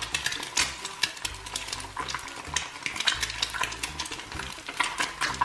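Eggs frying in hot oil in a cast-iron skillet, a steady sizzle dotted with frequent sharp crackles and pops of the fat.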